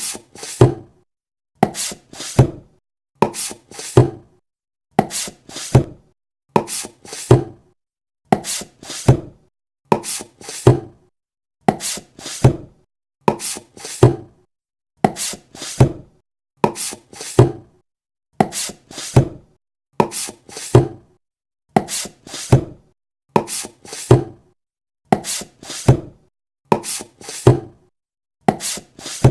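Sharp knocks in pairs, repeating at an even pace about every 1.7 seconds, the second knock of each pair the louder.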